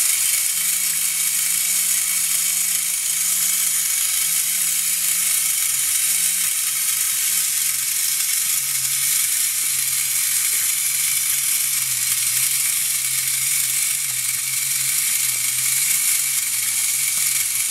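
Clockwork motor of a Japanese tin wind-up Mechanical Animal Barber Shop toy whirring steadily as it drives the barber's arm and tilting chair, its pitch sinking slightly about halfway through. The mechanism is running soundly.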